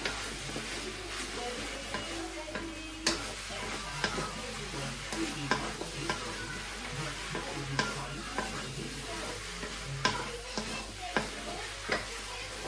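Stir-fried thenthuk noodles and vegetables sizzling in a metal wok, stirred briskly with a wooden spatula that scrapes and knocks against the pan every second or so.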